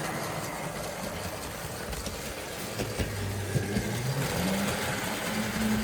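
Model train's electric motor running with a steady hum, its pitch rising about four seconds in as the train picks up speed. There is a sharp click about three seconds in.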